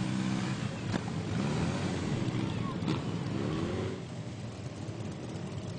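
Motorcycle engines as several bikes ride past, their pitch rising and falling as each one goes by, settling a little lower after about four seconds as the group rides off.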